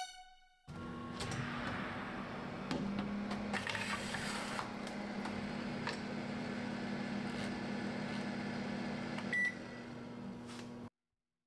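Countertop oven running with a steady fan hum, with several clicks and knocks as the oven is handled, and one short electronic beep from its control panel near the end.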